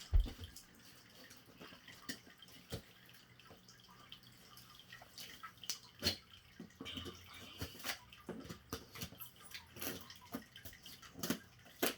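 Scissors cutting packing tape on a cardboard box: scattered sharp snips and crackles of tape and cardboard, after a low thump at the very start.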